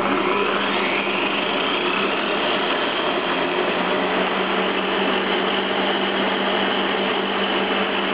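The 2 kW electric motor of a mechanical shaking-table oscillator runs, driving a double-row chain, a 10:1 gear reducer and a crank and pushrod, with a steady mechanical running noise and a constant hum. Its whine rises in pitch over the first couple of seconds as it speeds up, then holds steady.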